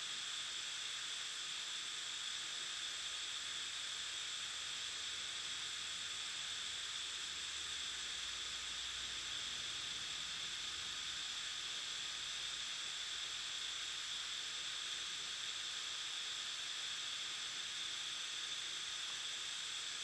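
Steady, even hiss with no events in it, strongest in a high band: the recording's own background noise with nothing else sounding.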